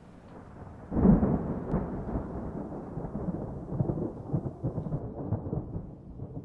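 A sudden deep boom about a second in, followed by a long, uneven low rumble: a thunder sound effect.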